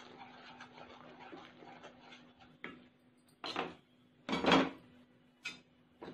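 Jaggery syrup bubbling and fizzing in a nonstick pan as it boils down to the right consistency, stirred with a wooden spatula. Partway through come four sharp utensil knocks against the pan, the third one the loudest.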